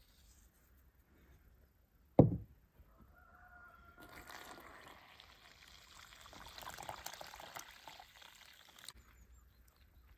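A single loud thump about two seconds in, then liquid pouring into a container for about five seconds, swelling and then stopping suddenly.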